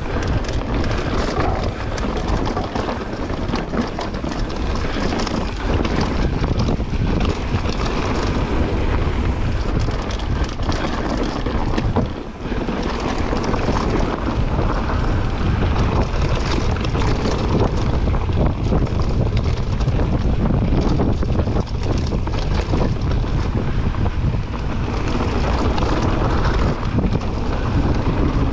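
Wind buffeting the microphone and mountain bike tyres rolling over a packed dirt trail on a descent, with many small knocks and rattles from the bike over bumps.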